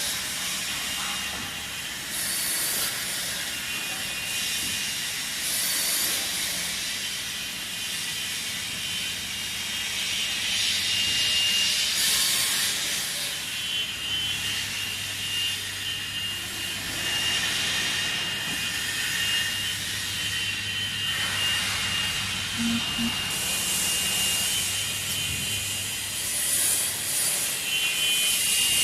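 CNC wood cutting saw machine running, with a steady high whine and short hissing noises every few seconds.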